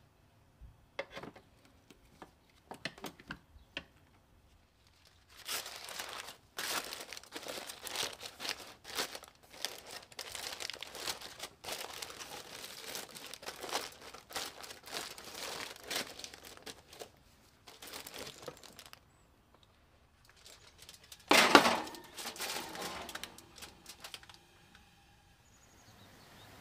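Aluminium foil being crinkled and crumpled as it is pressed down over a roasting pan, in long crackly spells with the loudest crumple about three-quarters of the way through, after a few light knocks at the start. Near the end a faint rush of running water fades in.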